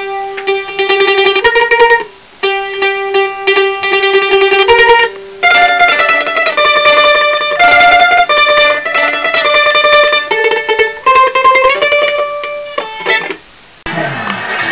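Solo mandolin played with tremolo picking: a melody of sustained, rapidly re-picked notes in phrases broken by short pauses. The playing breaks off near the end.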